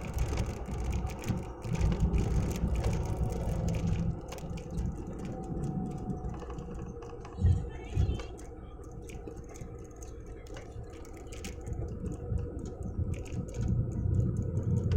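Low rumble of a moving road vehicle with many small clicks and rattles, and two brief thumps about halfway through.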